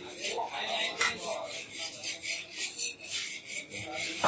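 Irregular rubbing and scraping noise, made of many short rasping strokes.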